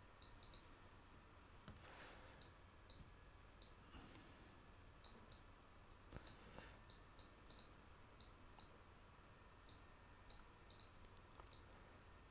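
Computer mouse clicking, faint and sharp, at an irregular pace of about one or two clicks a second, over near-silent room tone.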